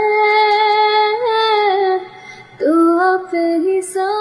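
A woman singing a romantic Hindi love song, holding long drawn-out notes. The voice drops away briefly about two seconds in, then takes up the melody again.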